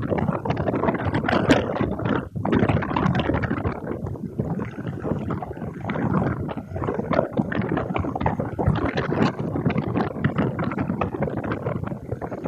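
Boeing CH-47 Chinook tandem-rotor helicopters with their rotors turning before throttle-up, making a rapid, irregular bubbling sound like bubbles in a fish tank.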